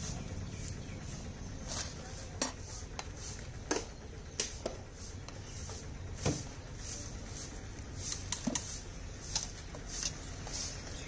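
A steel ladle clinking and scraping against an aluminium pot as boiling chai is stirred and ladled: about ten irregular clinks. Under them, a steady low rumble from the gas burner.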